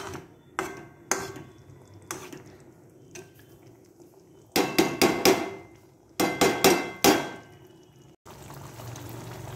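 Spatula knocking and scraping against a pan while stirring thick spinach gravy with paneer cubes: a few separate knocks in the first two seconds, then two quick runs of clatter about five and seven seconds in. Near the end it gives way to a steady low hiss.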